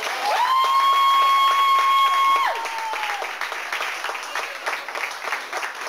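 Spectators cheering: two long held yells in the first few seconds, then clapping and scattered shouts.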